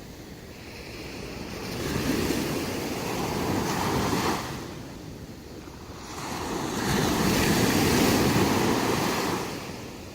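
Sea waves breaking and washing up a beach. Two waves swell and fade about five seconds apart, the second slightly louder and longer.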